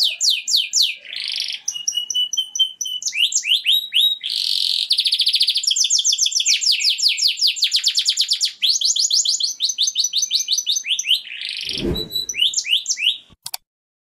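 Male domestic canary singing a long song of fast trills and rolls, the pattern changing every second or two. A short low rumble comes about twelve seconds in, and the song stops just before the end.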